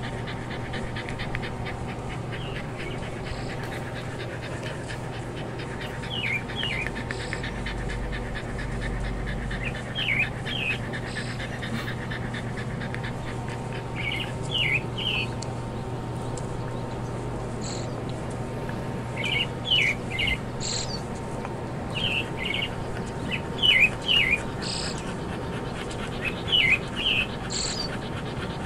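Small birds chirping in quick clusters of two or three short notes every few seconds, over a dog's steady panting and a low hum.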